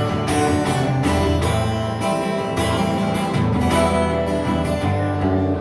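Acoustic guitar strumming chords in an instrumental passage after the song's final verse.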